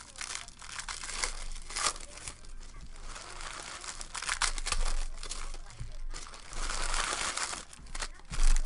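Foil wrappers of Panini Prizm baseball card packs crinkling and tearing as they are ripped open by hand, in irregular bursts of crackle.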